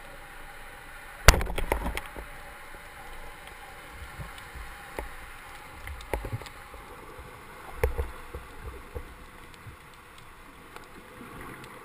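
A rubber-band speargun fires underwater: one sharp crack about a second in, followed by a quick rattle of smaller clicks as the shaft goes. A few scattered knocks follow over steady underwater noise.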